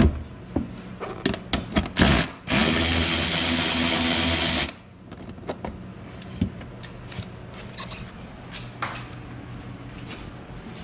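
Cordless electric ratchet spinning out a body-panel bolt on an ATV: a short burst, then a steady motor whir for about two seconds that stops abruptly. Clicks and knocks of the tool on the bolt come before it.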